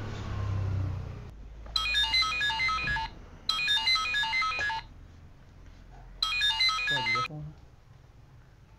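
Mobile phone ringtone: a short electronic melody of quick notes played three times, with brief pauses between, an incoming call that is answered just afterwards.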